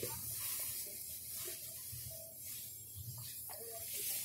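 Cloth rustling and handling bumps close to the phone's microphone, over a steady hiss.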